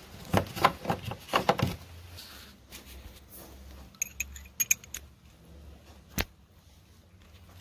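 Chrome steel sockets clinking against each other and the plastic socket tray as one is picked out, a quick run of clicks in the first two seconds. Then a few ringing metal clinks and a single sharp click as the socket and ratchet are set on a bolt head.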